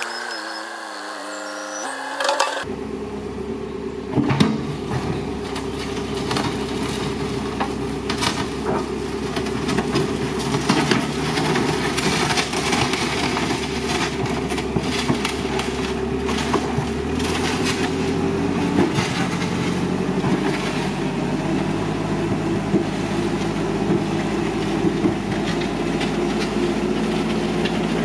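JCB Loadall telehandler's diesel engine running steadily as it works its front bucket, coming in a couple of seconds in, with frequent metallic clanks from the steel bucket and loader arms.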